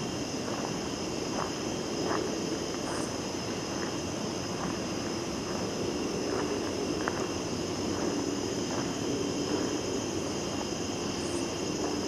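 Steady night chorus of crickets and other insects, a constant high trill, with footsteps along a dirt trail.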